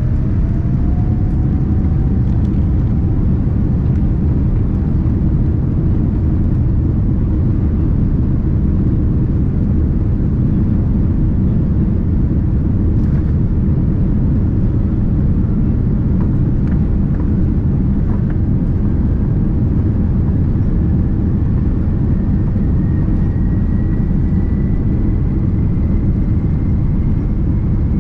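Cabin noise of a Boeing 787-9 airliner on the ground: a steady, loud low rumble from the engines and cabin air. A faint whine rises slowly in pitch over the second half.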